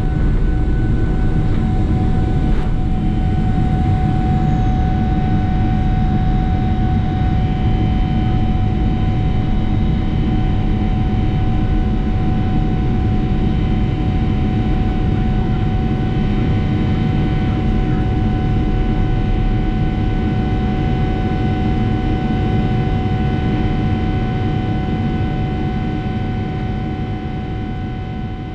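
Boeing 777-300ER's GE90-115B engines at takeoff thrust heard from inside the cabin over the wing: a deep, steady rumble with a steady fan whine on top, through the end of the takeoff roll, liftoff and initial climb. The engine sound grows quieter over the last few seconds.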